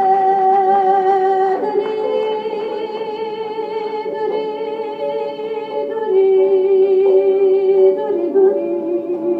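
A woman singing Kurdish folk music live, holding long, wavering notes and shifting pitch a few times, over a steady instrumental accompaniment.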